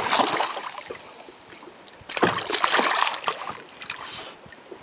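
Giant snakehead thrashing at the water surface beside the boat: splashing in two bursts, one at the start and another about two seconds in.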